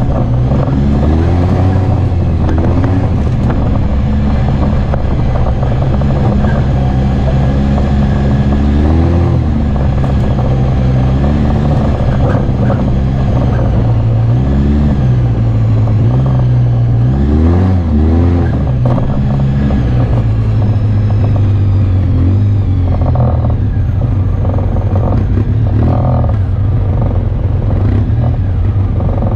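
Off-road vehicle engine running steadily, with the throttle opened and eased off several times so the engine note rises and falls: about two seconds in, around nine, around fifteen, and twice in quick succession around eighteen seconds in.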